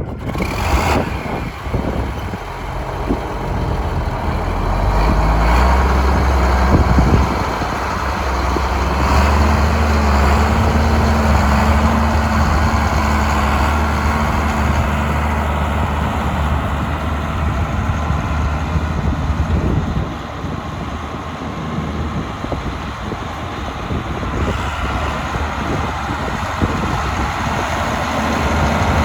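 A heavy vehicle engine running, its pitch rising a few seconds in and again at about nine seconds before it settles back, over a rushing noise.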